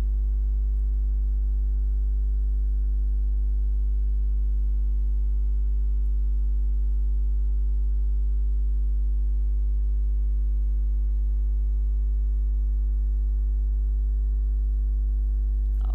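Steady electrical hum: a low buzz near 50 Hz with a row of fainter, evenly spaced overtones above it, unchanging.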